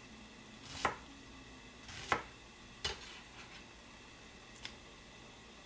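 Kitchen knife cutting an onion on a plastic cutting board: three sharp knocks of the blade against the board in the first three seconds, then a fainter one near the end.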